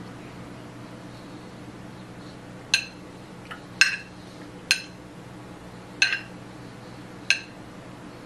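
A fork clinking against a plate while eating: five sharp, ringing clinks about a second apart, starting nearly three seconds in, over a faint steady hum.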